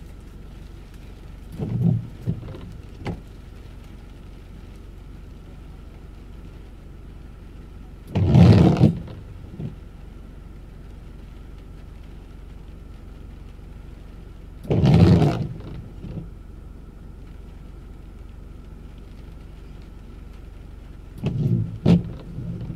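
Car's windshield wipers on an intermittent setting, sweeping across wet glass about every six and a half seconds, each sweep about a second long, heard from inside the cabin over a steady low hum.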